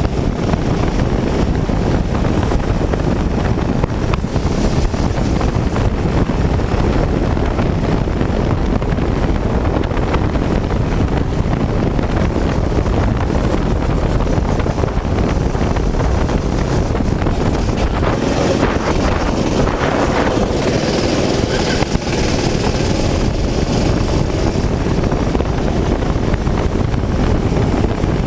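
Go-kart engine running under race load with heavy wind buffeting on the onboard microphone. About two-thirds of the way through, a pitched whine briefly rises and falls above the noise.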